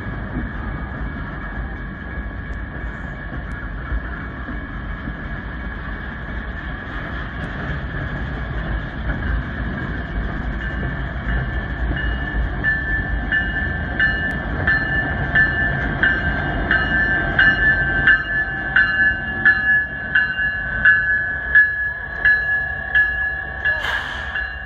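Freight train boxcars rolling past at close range: a steady low rumble with a steady high-pitched squeal over it. From about halfway, a regular clicking comes in at a bit more than one a second and grows louder toward the end.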